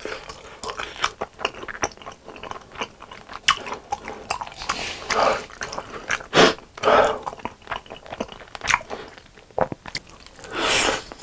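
Close-miked chewing of saucy chicken, with many small wet mouth clicks and smacks, then a bite into a sauce-coated chicken drumstick near the end.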